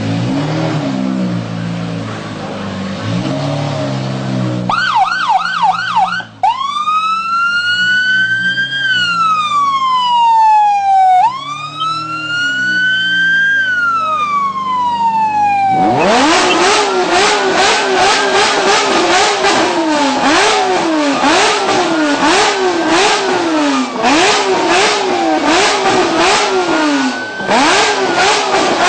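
A police-type siren warbles briefly, then gives two slow wails that rise and fall, over a low idling engine. From about halfway, the Lamborghini Murciélago LP640's V12 is revved loudly in quick blips, about one a second.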